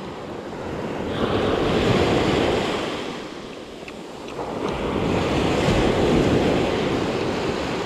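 Ocean waves washing up on a sandy beach, surging twice and easing off in between.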